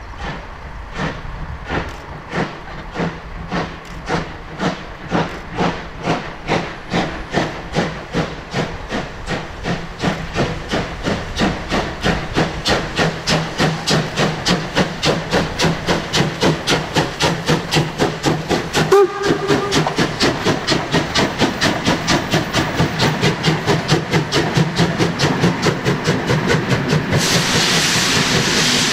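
DR class 35.10 steam locomotive 35 1097 pulling away with a passenger train: its exhaust beats start slow, about one a second, and quicken steadily to several a second as it gathers speed, with hissing steam. Near the end the beats give way to a steadier rushing hiss as the train goes by.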